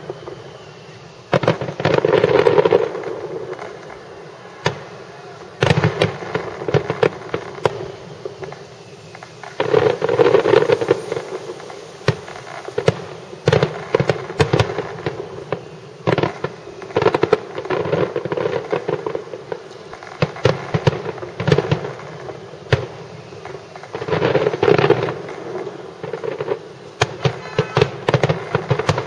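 Fireworks display: aerial shells bursting with sharp bangs and crackling, in dense waves every few seconds, with single bangs between them.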